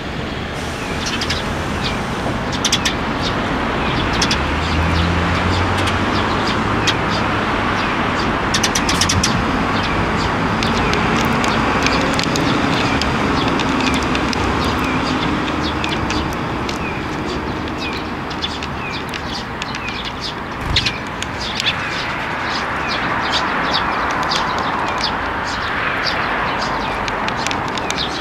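Eurasian tree sparrows chirping, many short calls one after another, over a steady background hiss.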